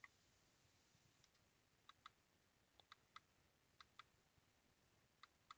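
Faint clicks from the push buttons of a Ford Expedition overhead console display, pressed and released in quick pairs a few times from about two seconds in, cycling through the display's modes.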